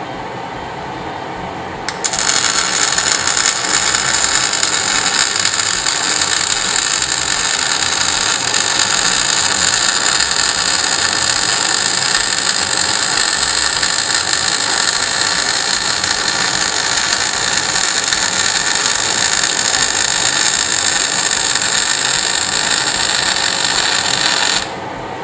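MIG/MAG welding arc on mixed shielding gas at 8 litres per minute: it strikes about two seconds in, then crackles and hisses steadily for some twenty seconds before stopping abruptly near the end. It is an even arc without sputtering, a sign that the gas coverage holds even with the fume extractor drawing close by.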